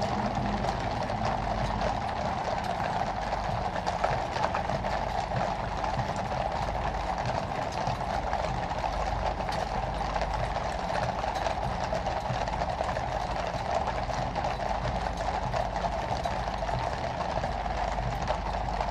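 Many horses' hooves clip-clopping on a paved road in a dense, irregular clatter, from the team of grey horses drawing the Diamond Jubilee State Coach and its mounted cavalry escort, over a steady low rumble of the coach and hooves.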